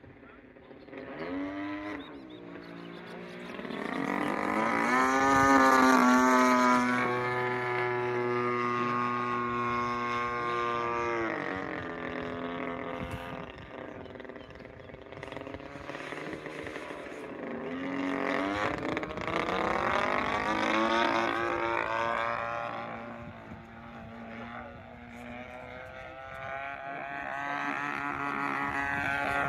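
Radio-controlled Extra NG aerobatic model airplane in flight, its motor and propeller droning with a pitch that rises and falls through the manoeuvres. It swells louder about four seconds in, drops back sharply near the middle, then builds again twice toward the end.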